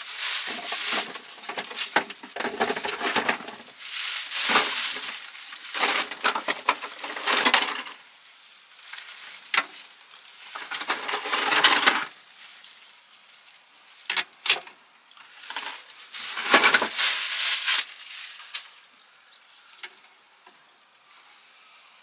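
Plastic packaging bags and a cardboard box being rummaged through and unwrapped: bursts of crinkling and rustling with small clicks of parts knocking together, dying away near the end.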